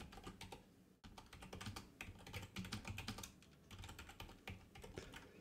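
Faint typing on a computer keyboard: irregular runs of key clicks with short pauses between them.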